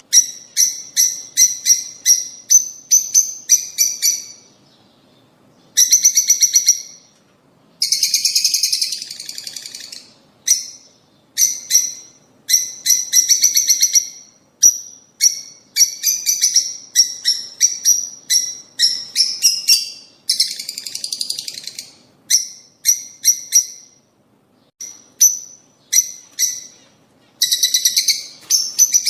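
Lovebirds calling: runs of sharp, high chirps at about three a second, broken by short pauses, with a few stretches of denser chattering.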